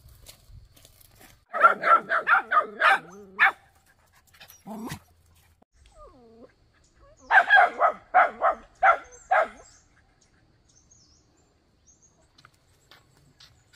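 A dog barking in two quick bouts of about seven or eight barks each, a few seconds apart.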